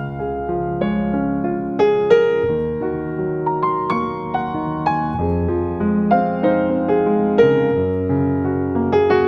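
Solo piano-like keyboard music: single notes struck one after another over held chords underneath, at a gentle pace.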